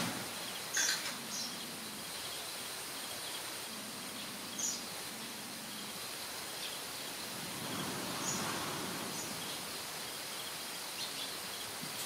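Outdoor ambience: a steady hiss with short, high bird chirps every few seconds.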